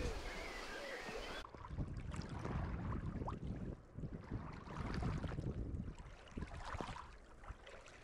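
Small waves lapping and splashing against shoreline rocks, with wind rumbling on the microphone. At the start, birds call briefly before cutting off after about a second and a half.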